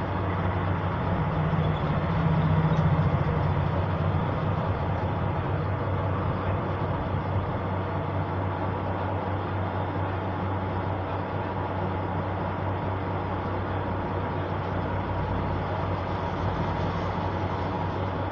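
Steady low mechanical drone over a noisy hiss, swelling slightly about two to four seconds in.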